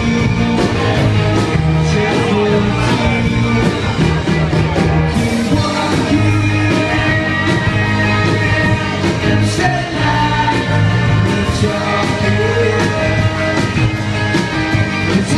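Live rock-and-roll band playing acoustic and electric guitars over a steady beat, with a man singing.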